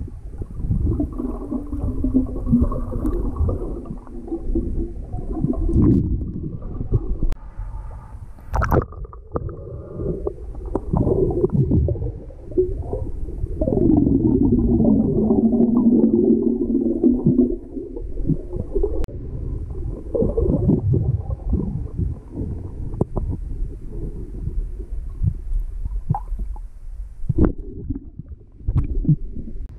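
Muffled underwater sound of a snorkeler moving in pond water: low rumbling and gurgling, with a few sharp knocks. About halfway through, a long stream of exhaled bubbles bubbles up from the snorkel mouthpiece and is the loudest sound.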